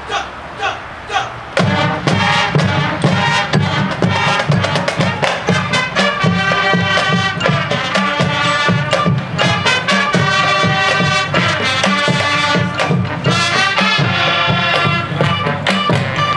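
High school marching band playing: a few sharp percussion strikes about two a second, then the full band of brass, winds and drums comes in loudly about a second and a half in and plays on.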